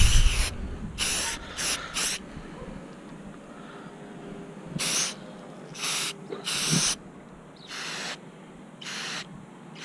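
Rust-Oleum aerosol spray can spraying paint in short bursts, about nine in all, each a brief hiss with quiet gaps between.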